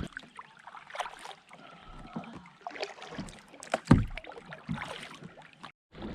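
Canoe being paddled: swishes and splashes of the paddle in the water, with scattered knocks against the hull, the loudest a sharp knock about four seconds in.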